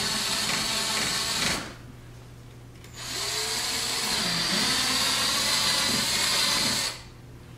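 Power drill with a quarter-inch bit boring through the thin plastic rear bumper fascia of a C7 Corvette, enlarging eighth-inch pilot holes. It runs in two spells: the first stops about a second and a half in, and the second starts about three seconds in and runs about four seconds.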